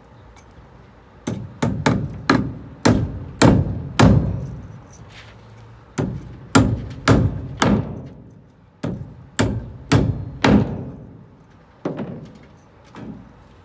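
Framing hammer driving nails into stacked 2x4 lumber: a run of about seven sharp blows, a pause of about two seconds, then another run of about nine blows, with a few lighter strikes near the end. Each blow rings briefly.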